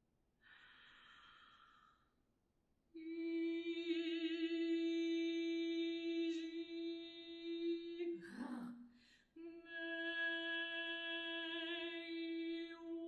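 Unaccompanied solo alto voice holding a long, steady note rich in overtones. About eight seconds in it breaks off briefly with a noisy sliding sound, then takes up the same note again. A faint airy sound comes just before the first note.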